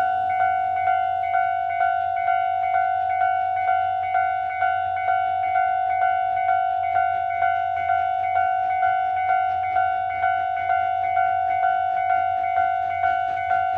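Railway level-crossing warning bell ringing its repeated clang, about two strikes a second, each strike dying away before the next.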